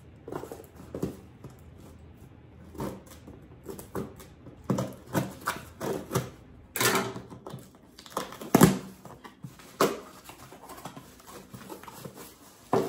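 Scissors cutting the packing tape on a cardboard box, then the box being handled and its flaps pulled open: a run of irregular snips, scrapes and cardboard rustles, the loudest knock about eight and a half seconds in.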